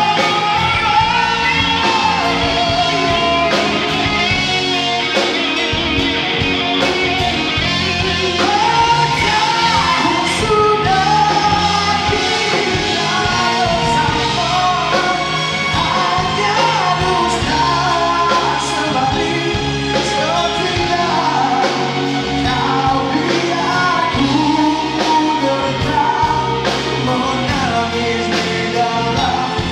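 Live band performance: a male lead vocalist singing into a microphone over a drum kit, electric bass and electric guitar, with steady drum hits.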